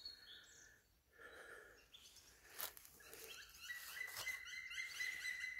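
Birds chirping faintly in the woods in short repeated calls. A steady high tone comes in about two-thirds of the way through and holds, with a couple of light clicks.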